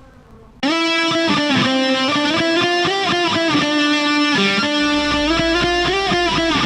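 Music led by an electric guitar with strummed chords, starting suddenly about half a second in after a brief quiet stretch.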